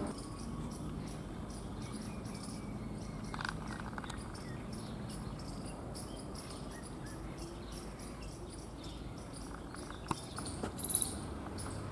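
Crickets chirping in a steady, even rhythm of high pulses, about three a second, over low outdoor background noise, with a brief louder high-pitched sound near the end.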